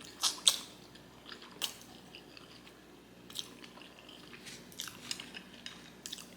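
Close-miked chewing of black bean noodles (jjajangmyeon): wet mouth clicks and smacks, scattered irregularly, a few of them sharper.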